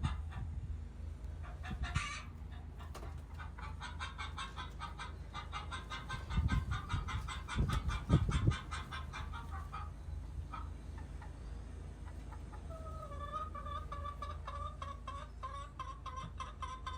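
Chickens clucking busily in rapid runs of short calls, with a couple of loud low thumps about six and eight seconds in. From about two-thirds of the way through, one bird holds a longer drawn-out call over the clucking.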